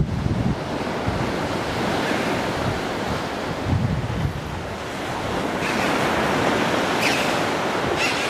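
Sea surf breaking and washing against the rocky shore below a cliff, mixed with wind gusting on the microphone in low rumbles. The surf hiss grows louder a little past halfway.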